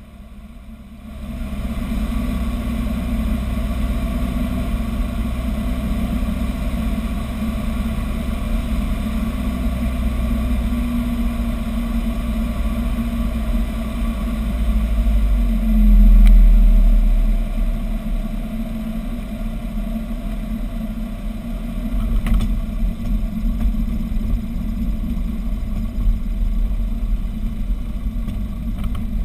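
Robin DR400 light aircraft's piston engine and propeller heard from inside the cockpit during landing: a steady drone on final approach that swells and then drops in pitch about halfway through as power comes back, followed by the rougher sound of the aircraft rolling on the runway after touchdown.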